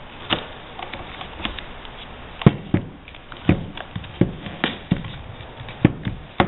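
Irregular light taps and knocks with faint rustling as strips of painter's tape are handled and pressed down onto a stretched canvas.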